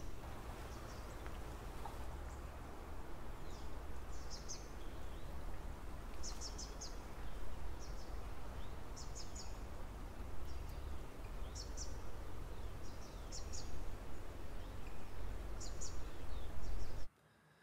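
Outdoor woodland ambience: a steady low rumble and hiss with short bursts of high chirps repeating every second or two. It cuts off abruptly near the end.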